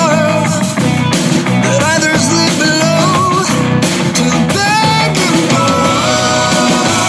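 A song with singing and guitar, laid over the footage.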